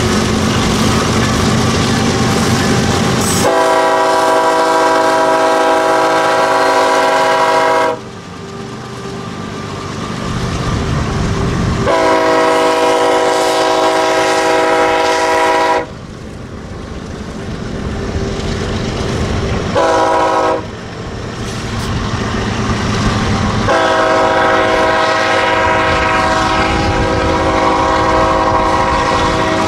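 Air horn on the lead diesel locomotive of a BNSF freight train, sounding two long blasts, one short blast and a final long blast: the standard grade-crossing warning. Between blasts the passing locomotives' diesel engines run with steady wheel-on-rail noise.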